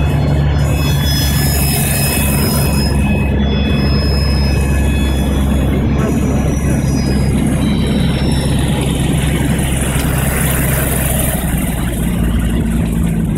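Cessna 185 floatplane's engine and propeller running steadily, heard inside the cabin, as the floats touch down and run across the water with a hiss of spray. The engine note shifts lower near the end.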